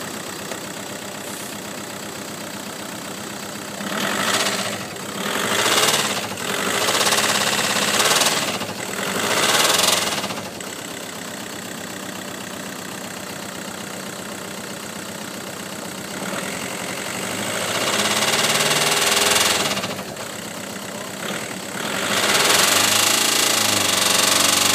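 Volkswagen Golf GTI engine idling, then revved in four short blips about four to ten seconds in, and held up in longer revs later on. It has a knocking noise, the fault the owner is revving it to check.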